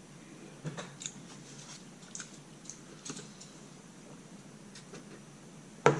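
Close-up eating sounds: scattered crisp clicks and crunches of chewing and handling fast food, with one sharp knock near the end.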